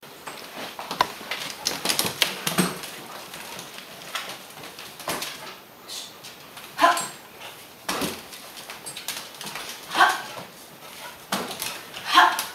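A dog giving short barks and yelps, about four times in the second half, among scattered knocks and scuffs on a wooden floor.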